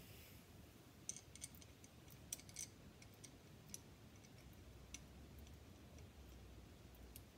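Faint, irregular light clicks and taps of a clamp plate and its bolts being fitted by hand around a driveshaft, bunched about a second in, with a few more later.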